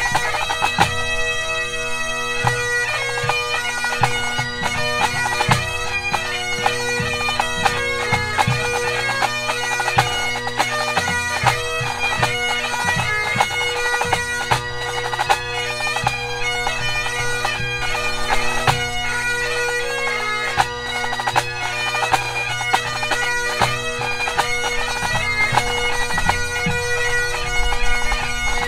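Pipe band playing a march, strathspey and reel set: Great Highland bagpipes playing the tune over steady drones, with snare drums keeping time in quick, sharp strokes.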